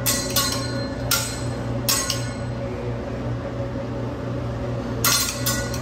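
A teppanyaki chef's metal spatula and knife clanging against each other and the steel griddle as he tosses them in a show routine: sharp ringing clinks. There are four in the first two seconds, then a gap of about three seconds, then a quick run of three near the end, over a steady low hum.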